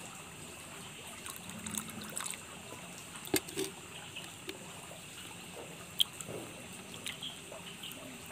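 EM4 microbial culture liquid trickling into a plastic dipper of water as a batch is mixed to dose the pond, with a few sharp clicks of handling, two of them louder, about three and six seconds in.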